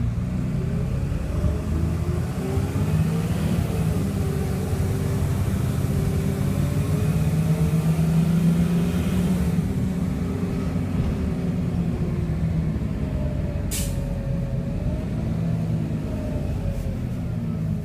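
Dennis Dart SLF bus's diesel engine and Allison automatic gearbox, heard from inside the saloon while the bus is under way. The engine note climbs over the first few seconds, holds, drops a little after halfway, then rises and falls once more near the end. A short, sharp hiss of air comes about three quarters of the way through.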